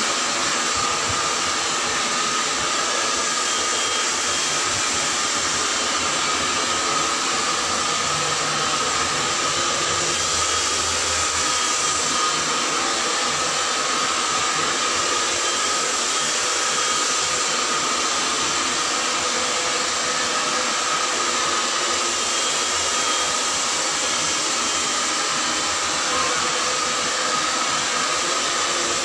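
Handheld hair dryer running steadily, blowing air through long hair: an even rush of air with a steady high whine.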